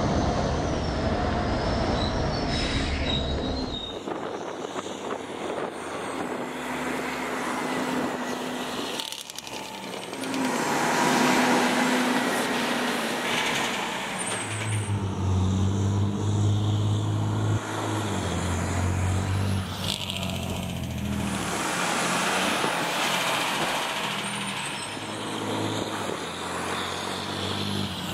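Aerial ladder fire truck's diesel engine running as the truck drives over a raised speed table and past, the engine note rising and falling as it passes.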